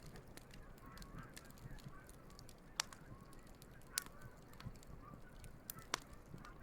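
Geese honking faintly in a scatter of short calls, over a burning wood campfire that gives three sharp crackling pops, about a second apart near the middle and end, among smaller crackles.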